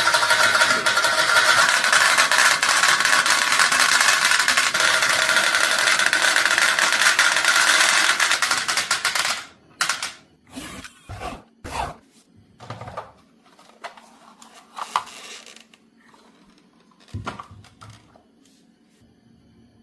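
Many marbles rolling and clattering down a marble run track in a dense, continuous rattle that stops about nine and a half seconds in. After that, a scattering of single marble clacks and knocks thins out and dies away.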